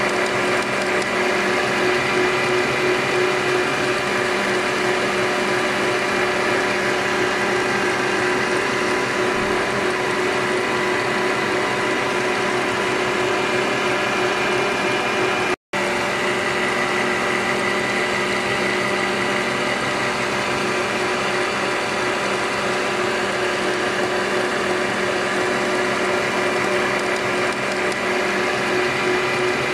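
Electric stand mixer running fast with its wire whisk beating a sponge-cake egg batter: a steady motor whine. The sound cuts out for an instant about halfway through.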